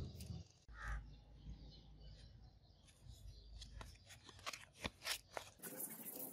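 600-grit sandpaper rubbed by hand along a steel katana blade: scattered scratchy strokes that turn into steady rasping about five and a half seconds in. A short bird call sounds about a second in.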